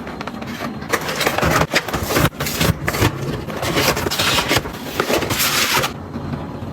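Handling sounds of household items being moved and set down: irregular rustling and scraping with many light knocks and clicks.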